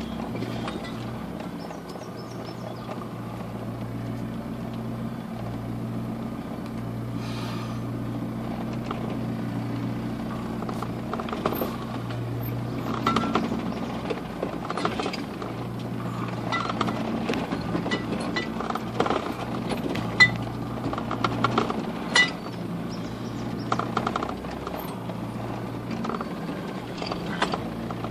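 A four-wheel drive's engine running steadily at low speed as it crawls off-road, a low hum heard from inside the cab. Frequent knocks, clicks and rattles of the body and loose gear come over it as the vehicle lurches over rough ground, with two sharper knocks about two-thirds of the way in.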